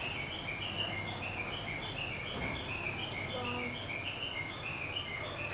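Steady run of short high chirps, about three a second, alternating between a higher and a lower note.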